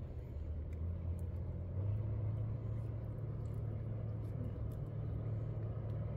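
A steady low rumble, a little stronger from about two seconds in, with a few faint clicks over it.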